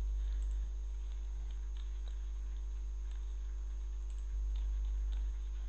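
Steady low electrical hum on the recording, with a few faint computer mouse clicks.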